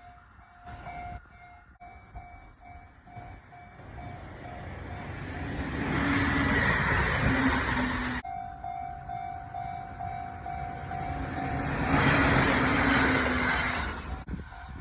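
Japanese level-crossing warning bell dinging in a quick steady rhythm while an electric train approaches and runs over the crossing, a rising rush of wheels on rails with a low steady hum. The sound cuts off abruptly about eight seconds in and the same bell and train pass come again, ending in another sudden cut.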